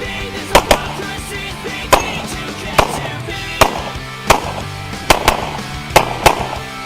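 Handgun shots fired during an IPSC stage: about ten sharp cracks at uneven spacing, several in quick pairs, over steady background music.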